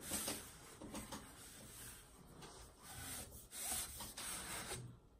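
A rolled canvas sliding out of a cardboard mailing tube, paper rubbing and scraping against the inside of the tube in a few uneven pulls.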